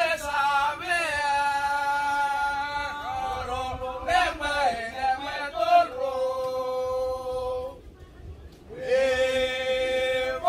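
A group of men chanting in unison for a Vanuatu kastom snake dance, in phrases of long held notes, with a short break about eight seconds in before the chant starts again.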